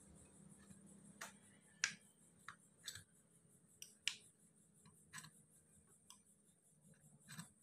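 Light, irregular metallic clicks and taps of a fork against a black non-stick wingko mould pan as the cakes are prised up and flipped, about ten ticks with the loudest near two and four seconds in.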